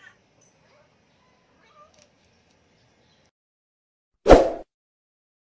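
A Siamese cat in heat calling faintly a few times. About four seconds in, a short loud sound cuts in.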